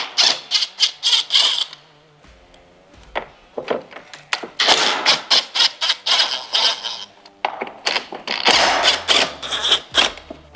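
A ratchet driving a T25 bit on an extension, clicking in quick runs with short pauses as screws are backed out.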